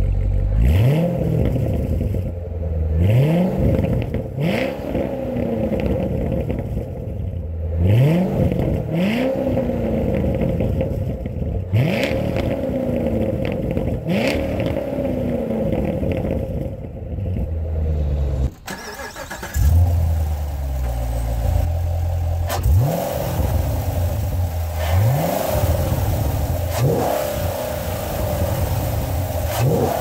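2014 Chevrolet Corvette Stingray's 6.2-litre LT1 V8 idling and revved again and again through its quad exhaust. Each blip rises quickly in pitch and falls back to idle, about eleven in all, with a short gap about two-thirds of the way in.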